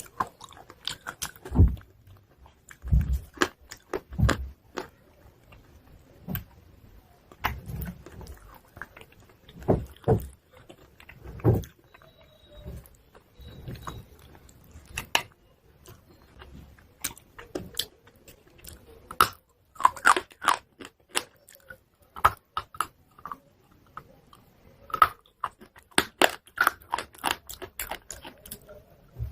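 Close-miked biting and chewing of crunchy chalk pieces: a continuous run of crisp crunches and clicks, with a few deep thuds in the first few seconds and quicker, busier crunching in the last third.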